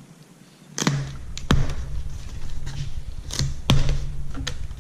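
A cardboard shipping box being handled and opened: four sharp knocks and thumps over low rumbling handling noise that starts about a second in.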